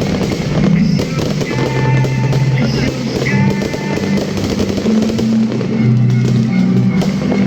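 Loud music with held bass notes and a melody, mixed with the dense popping and crackling of fireworks.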